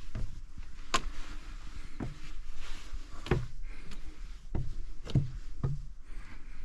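Footsteps climbing fire-tower stairs: irregular thumps and knocks, a step every half second to a second, over a low steady rumble.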